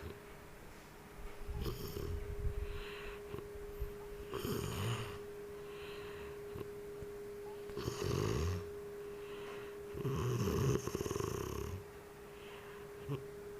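A sleeping person snoring, about four rough snores a few seconds apart, over a steady faint hum.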